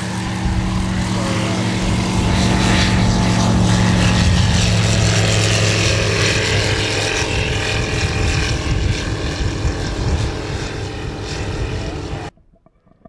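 Paradise P1 light sport aircraft's Rotax 912 ULS engine and propeller droning steadily during takeoff and flight. It grows a little louder over the first few seconds and cuts off abruptly near the end.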